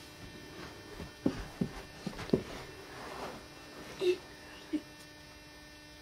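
Quiet room with a faint steady electrical hum and a few short, soft bumps and shuffles, most of them between one and two and a half seconds in, as a child wedged in a fabric laundry hamper shifts about on the carpet.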